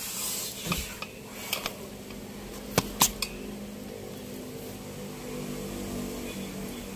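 Handling noise as the handheld camera is picked up and moved about: a brief rustle, then several sharp clicks and knocks, the loudest about three seconds in. A faint low hum carries on underneath from about halfway through.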